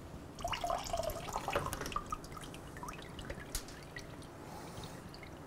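Old engine coolant dripping and trickling out of a removed motorcycle cooling-system part into a bucket of drained coolant. The splashing is busiest in the first couple of seconds, then thins to single drips.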